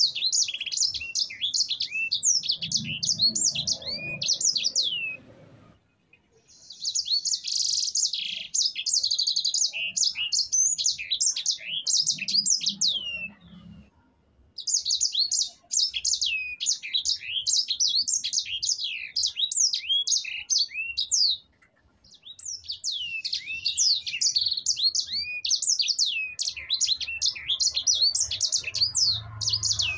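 Sanger finch singing a long rolling song of rapid, high chirps, many slurred downward, in runs of six to eight seconds, each ended by a brief pause.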